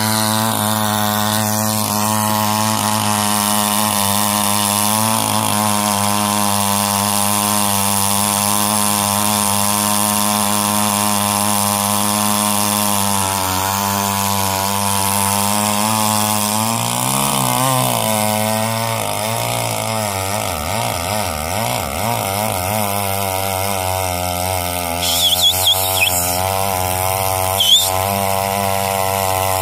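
Gas chainsaw running steadily at speed while logs are cut; its pitch dips and wavers for a few seconds about midway, then settles again. A few brief high squeaks sound near the end.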